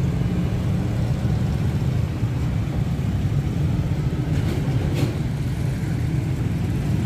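Steady low rumble of outdoor background noise, with one sharp click about five seconds in.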